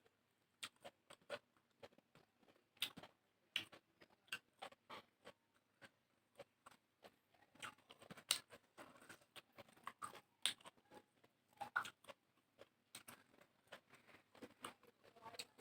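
Close-miked eating sounds: soft, irregular wet mouth clicks and smacks of someone chewing a mouthful of rice and curry.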